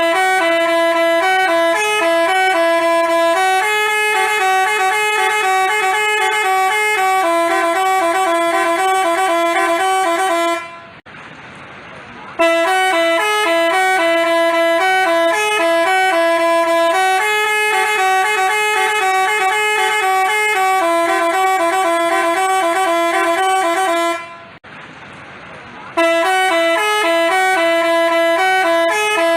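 Telolet basuri horn playing a melody of bright, stepping horn notes. The same tune of about eleven seconds is repeated, with a short pause between each pass.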